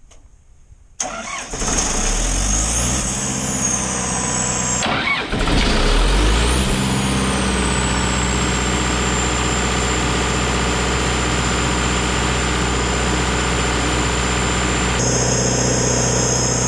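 John Deere 4045 turbocharged four-cylinder diesel of a generator set starting about a second in, then settling into a steady run. A high whine rises and falls as it comes up to speed, then holds as a steady tone.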